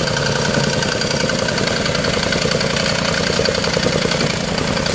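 Engine-driven tamping rammer (jumping-jack stamper) running steadily, its engine buzzing as the foot pounds the loose fill soil in a fast, even rhythm to compact it.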